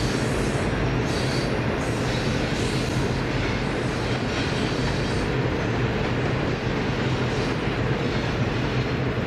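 Loaded grain train rolling past, its wagons' wheels running steadily over the rails.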